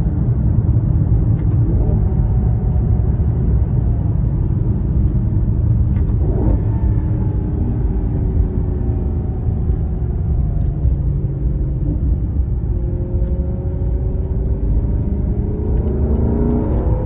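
Maserati GranTurismo V8 engine and stock exhaust in Sport mode, under a heavy low rumble. The engine note rises sharply about six seconds in, falls away slowly over several seconds, then rises again near the end.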